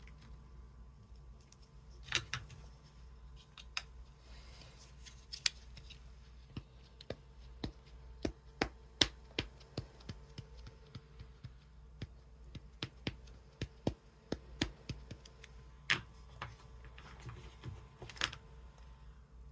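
Irregular light clicks and taps with a few brief rustles: rubber stamps, acrylic blocks and an ink pad being handled and pressed down on a craft table during stamping.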